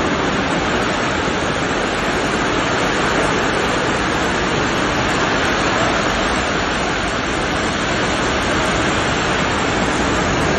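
Loud, steady roar of a violent rainstorm: torrential rain driven by extremely strong wind.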